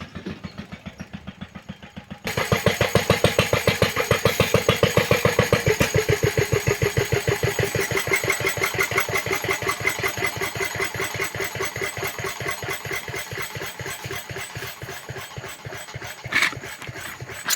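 The homemade narrow-gauge locomotive's engine idling with an even chug of about six or seven beats a second. It gets abruptly louder about two seconds in, and there is a short clank near the end.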